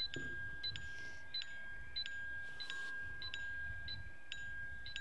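Warning beeps from a budget beginner's drone: a short high beep repeating about every two-thirds of a second over a steady high tone, which the pilot takes for the low-battery alarm.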